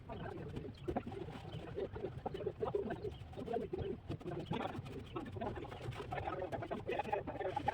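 Pigeons cooing repeatedly.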